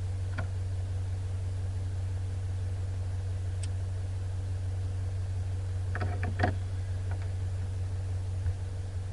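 Off-road vehicle's engine running with a steady low drone. A few knocks and rattles come about six seconds in.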